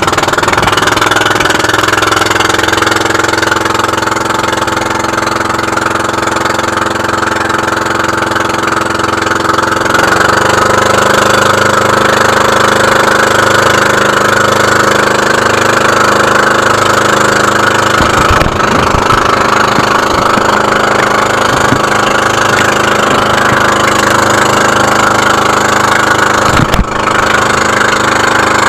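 Engine of a motorized outrigger boat (bangka) running steadily, its note shifting slightly about ten seconds in, with a single sharp knock near the end.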